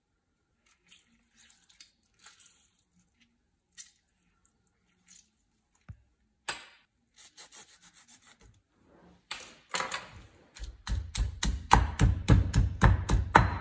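Scattered soft rubbing and scraping noises of hands-on kitchen work, then background music with a steady beat starts about ten seconds in.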